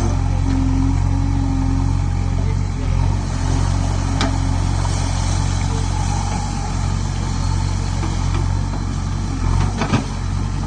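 JCB 3DX backhoe loader's diesel engine running steadily under working load as the backhoe arm swings and digs in the stream. Two sharp knocks stand out, one about four seconds in and one near the end.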